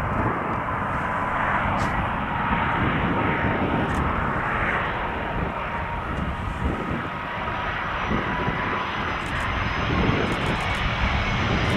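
Jet engines of an Airbus Beluga XL (A330-743L), its twin Rolls-Royce Trent 700 turbofans, running at approach power on final approach. A steady rumble with a high, even whine on top.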